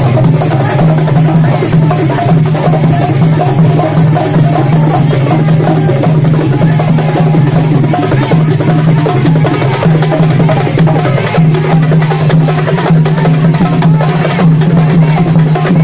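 Loud music with drums and percussion, a steady dense beat with wood-block-like clicks over a constant low drone.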